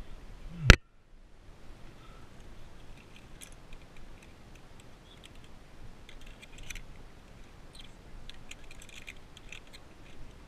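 One sharp knock about a second in, then via ferrata carabiners and lanyard hardware clicking and ticking against the steel safety cable in small scattered clinks, bunched in a few clusters near the end.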